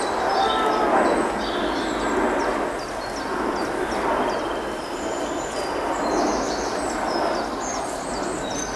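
Songbirds chirping and trilling in short high calls over a steady rushing background noise.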